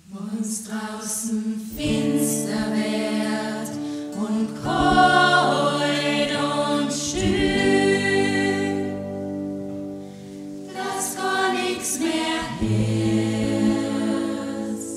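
A choir singing sustained chords in several parts, starting at once out of silence, with a brief lull between phrases partway through.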